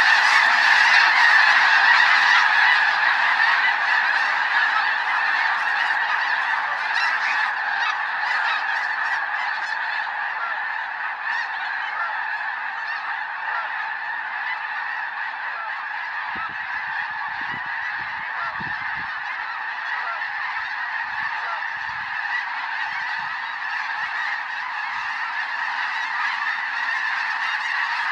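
A huge flock of geese in flight honking in a dense, unbroken chorus of thousands of overlapping calls. It is loudest at the start, eases a little through the middle and swells again near the end as the flock comes back overhead.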